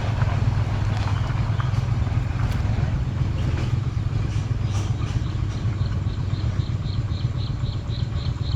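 A small engine running at a steady speed, a constant low drone. From about halfway through, an insect chirps in faint high pulses at about three a second.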